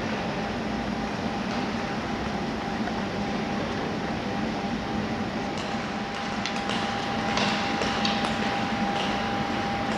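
Steady rush and hum of an ice rink's background, with a thin steady tone running through it. From about six seconds in come a few short scrapes, skate blades on the ice.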